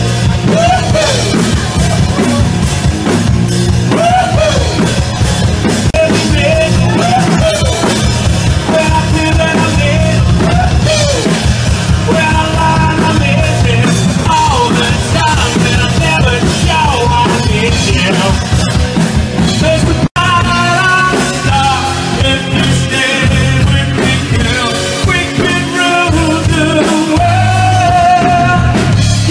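Live rock band playing loudly: drums, bass and guitars with a singer, the voice most prominent in the first third. The sound cuts out for a split second about twenty seconds in.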